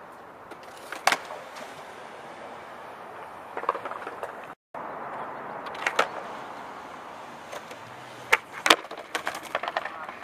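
Skateboard wheels rolling on concrete, with sharp clacks of the board snapping and landing several times. Near the end comes a rapid cluster of knocks as the board slaps and clatters and the skater falls.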